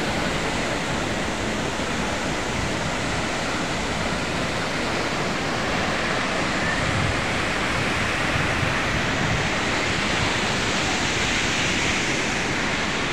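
Athirappilly Falls on the Chalakudy River: a large waterfall pouring onto rocks, heard as a steady, loud rush of falling water.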